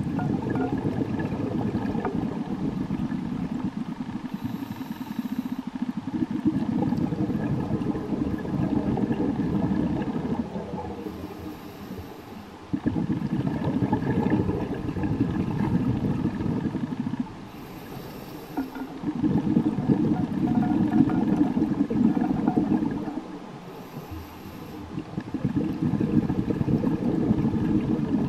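Scuba diver breathing through a regulator underwater: a brief hiss on each inhale, then a long rush of exhaled bubbles, repeating about every six seconds.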